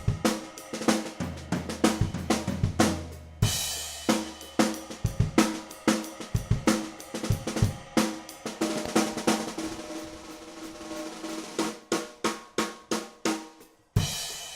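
Brady 14" x 7" Marri ply snare drum played in a groove on a drum kit, with bass drum, hi-hat and cymbal crashes: a fairly dry snare with a low fundamental tone. A cymbal crash comes about three and a half seconds in, a run of quick snare strokes follows in the middle, and another crash lands near the end.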